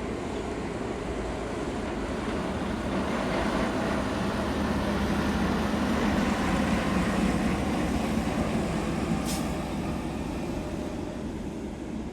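Jet airliner engine noise, a rushing roar with a low hum, swelling to its loudest about seven seconds in and then fading: departing traffic passing on its take-off roll. A brief tick sounds a little after nine seconds.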